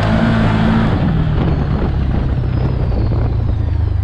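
Can-Am Commander XT 1000R side-by-side's Rotax V-twin engine running under way at fairly steady revs, loud and continuous.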